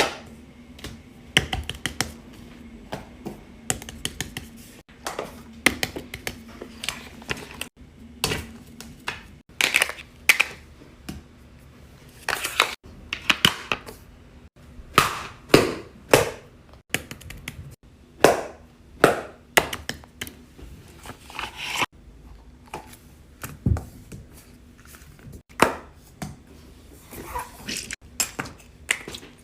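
Small plastic fidget toys being handled close to the microphone: irregular clicks, taps and crackly rustles, a few at a time with short pauses between.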